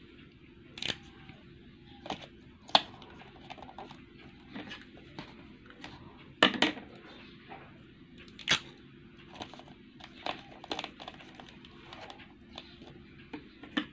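Sellotape being pulled, torn and pressed onto the edges of a paper-covered cardboard box: scattered sharp crackles, rips and taps, the loudest about a second in, near three seconds, and around six and a half and eight and a half seconds.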